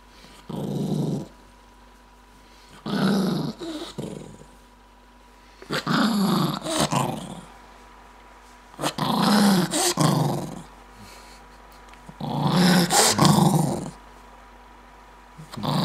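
Maltese dog growling angrily in bouts about every three seconds, each bout longer than the last, with quiet pauses between them.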